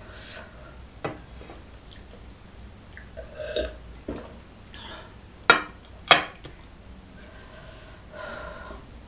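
Close-miked mouth sounds of a person drinking tea from a glass mug: gulps and swallows, with two loud sharp gulping sounds about half a second apart midway and a short burp.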